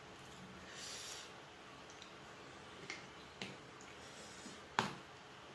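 A person eating close to the microphone: a soft hiss about a second in, then a few sharp clicks, the loudest about five seconds in.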